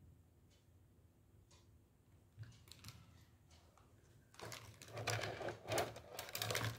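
Handling of a gold-toned beaded chain necklace: a rapid run of small clicks and rattles starts about four seconds in, after near silence.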